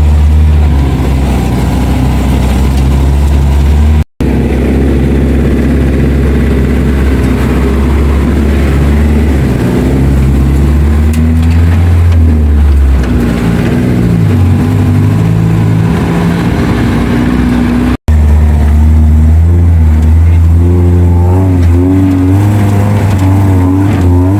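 Off-road 4x4 engine running loud under load, its pitch rising and falling as it is revved. The sound breaks off abruptly twice, about 4 seconds and 18 seconds in.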